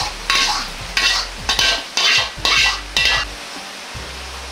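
Metal ladle scraping and stirring sizzling ketchup sauce in a carbon-steel wok: about six quick strokes, roughly two a second, each with a light metallic ring. The strokes stop about three quarters of the way through, leaving only a steady low hum.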